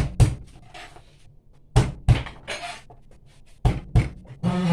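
Sharp knocks and thuds of kitchen things being handled on a hard work surface, coming in close pairs about three times with quiet between.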